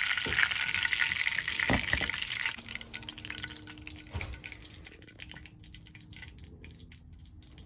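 Perch fillets frying in hot oil, a steady sizzle that drops away sharply about two and a half seconds in, leaving faint crackling.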